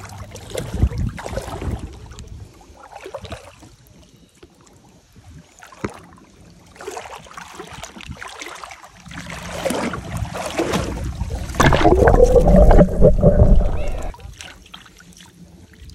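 Water sloshing and splashing around someone wading in shallow sea. About eleven seconds in, the recorder dips under the surface and the sound turns to a louder, muffled underwater rumbling and gurgling, which stops suddenly near the end.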